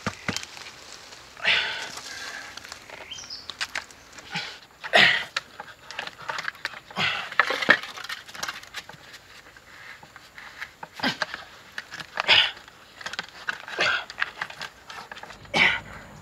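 Bamboo poles knocking and scraping as they are handled and pushed upright into soil to form a wall, in scattered bursts every second or two with a few sharp hollow knocks.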